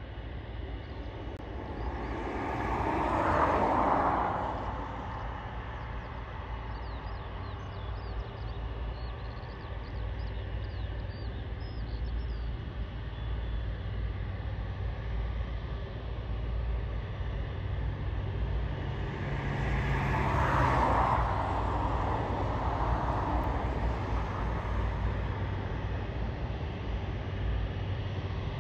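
Airbus Voyager KC3 tanker taxiing at low power, its engines giving a steady distant hum and rumble. The noise twice swells louder and fades away, about three seconds in and again about twenty seconds in.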